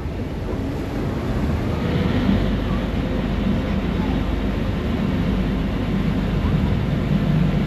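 Steady rumble of a passenger ferry under way, heard from its open deck: engine noise mixed with wind buffeting the microphone and water rushing past the hull.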